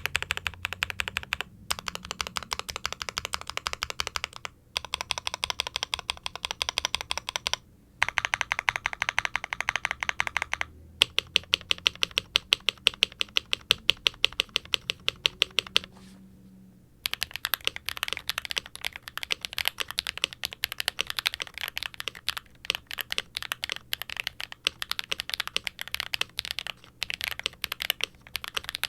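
Typing on a Novelkeys NK87 aluminum-case mechanical keyboard with HMX tactile switches, a carbon fiber plate and ABS keycaps: fast runs of keystrokes broken by short pauses. Partway through, the typing slows to louder, evenly spaced single keypresses, then a brief silence before fast typing resumes.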